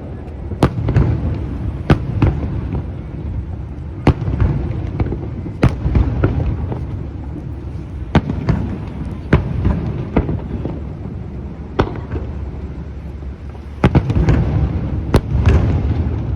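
Aerial fireworks shells bursting: about a dozen sharp bangs at irregular intervals over a continuous low rumble of booms and echoes, with a denser cluster near the end.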